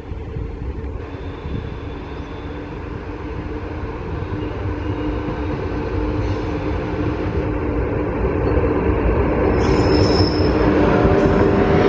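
A passenger train running on the rails, its rumble and a steady whine from the wheels growing steadily louder as it approaches.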